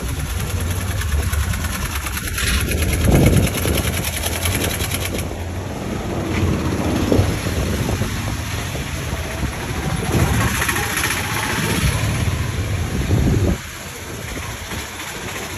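Busy street noise with a steady low rumble like an engine running nearby, dropping off suddenly near the end.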